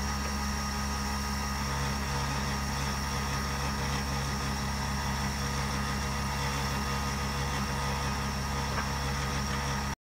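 Standing steam locomotive W22, steam hissing steadily from its front end over a low steady hum. It cuts off abruptly near the end.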